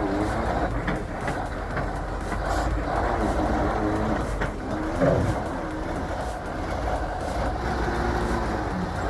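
Heavy truck engine running, a steady rumble with its pitch wavering slightly.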